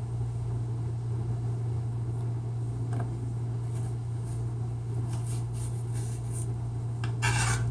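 Knife cutting through an apple wedge on a plastic cutting board: faint soft cuts from about halfway in, then a louder clatter near the end, over a steady low hum.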